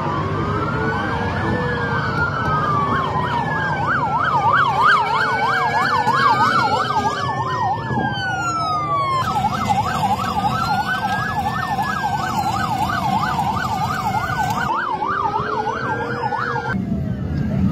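Several police sirens sounding together as patrol vehicles pass on the highway, slow rising-and-falling wails overlapping fast yelps, over a steady rumble of traffic. The mix changes abruptly about nine seconds in, and the yelp stops shortly before the end.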